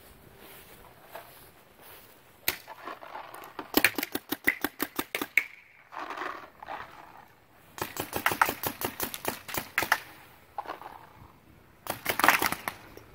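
Paintball markers firing: one single shot, then three rapid bursts of sharp pops, several shots a second each.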